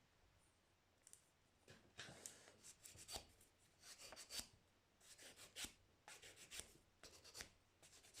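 Faint, irregular scratching, rubbing and small clicks of hand tools and cable being worked at a soldering bench.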